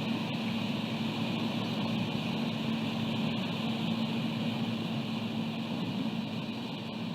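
Steady wind buffeting the microphone, with a constant low hum underneath and a high hiss; no calls from the eaglet.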